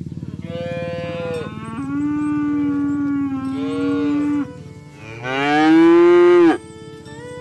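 Cattle mooing: several long calls, two of them overlapping at different pitches. The loudest comes about five seconds in and rises in pitch before cutting off.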